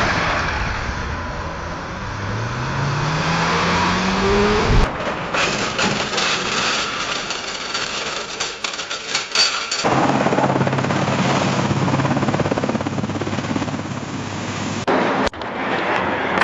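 Car crash sound effect: a car engine revving up, rising in pitch, then a sharp crash impact about five seconds in, followed by several seconds of scattered clattering debris. After that comes a steady, noisy engine-like drone.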